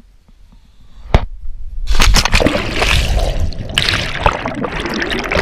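Water splashing and rushing loudly, starting about two seconds in, after a single sharp knock about a second in.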